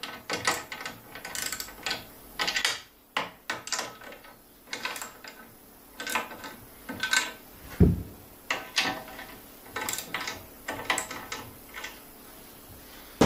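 A 14 mm spanner tightening nuts onto metal studs: a run of short, irregular metallic clicks and rasps, with one heavier knock about eight seconds in.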